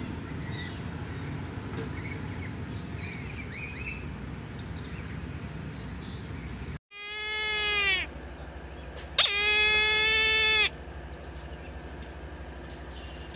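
Faint songbird chirps over outdoor ambience, then, after an abrupt cut, two loud drawn-out calls from a Brahminy kite: the first about a second long and swelling, the second about a second and a half, starting with a sharp click.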